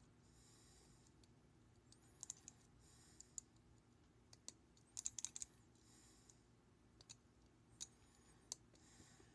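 Small sharp clicks of a pick turning the discs inside a Master No. 40 disc lock, scattered irregularly with a quick cluster about five seconds in, over a faint background.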